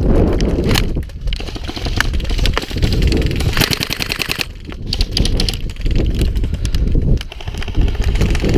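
Airsoft electric gun firing several rapid full-auto bursts, each a fast even rattle of shots, over heavy wind buffeting the microphone.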